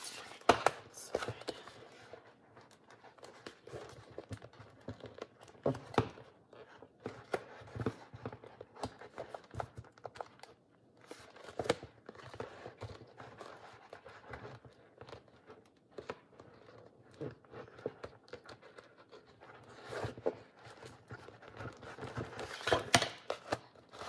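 Hands handling a hand-sewn paper journal block and its fabric-covered board cover: irregular rustling and scraping of paper and cover, with scattered sharp clicks and taps. The handling grows louder for a few seconds near the end.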